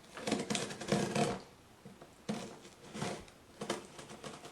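Sharp knife slicing through a cardboard box and its packing tape: scratchy, rasping cutting strokes in the first second and a half, then a few shorter scrapes and knocks of cardboard being worked open.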